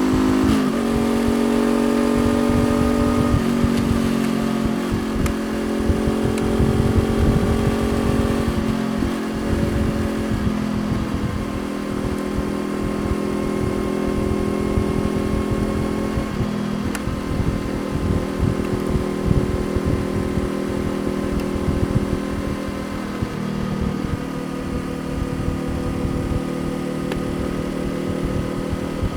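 Honda CBR500R's parallel-twin engine running under way, a steady note that shifts in pitch several times over the stretch, with a dense low rumble beneath it.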